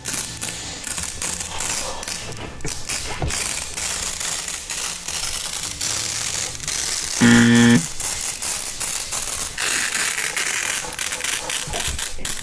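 Green adhesive tape being slowly peeled off, crackling in a dense run of small clicks as it comes away. About seven seconds in, a brief loud low hum cuts through for half a second.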